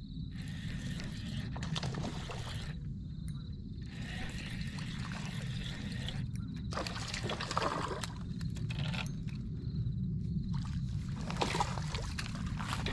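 Hands handling fishing tackle right at the microphone: irregular rustling and small clicks as line and a spinning reel are worked, over a steady low rumble.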